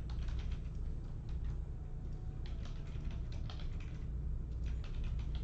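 Computer keyboard typing: irregular runs of quick key clicks, over a steady low hum.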